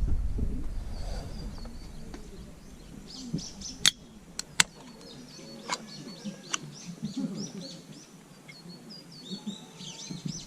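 Small birds chirping and twittering outdoors, with a few sharp clicks near the middle. A low rumble fades out in the first couple of seconds.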